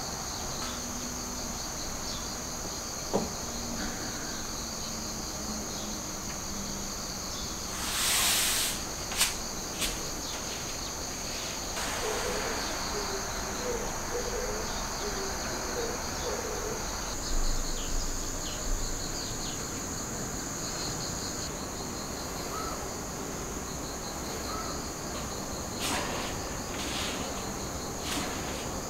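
Steady chorus of insects chirping, a high pulsing trill that never lets up. About twelve seconds in, a short run of five soft low hooting notes sounds behind it, with a brief rustle and a few small knocks elsewhere.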